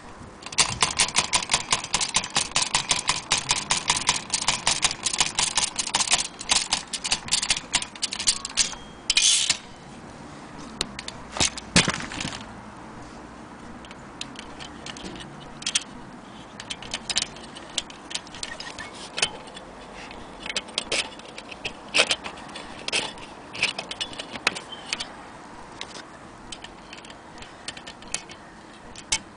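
Antique Corona manual typewriter being typed on: a fast, dense run of keystrokes for about nine seconds, then slower, scattered single keystrokes.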